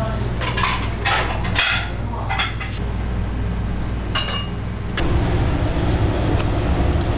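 Kitchen handling noises: a few scrapes and knocks as raw mullet pieces are moved on a wooden chopping block and in a steel bowl, over a steady low hum. About five seconds in, with a click, the background changes to a louder, rougher low rumble.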